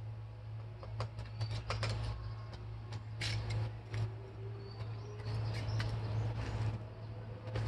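A steady low hum with scattered clicks and taps, and a few faint short bird-like chirps.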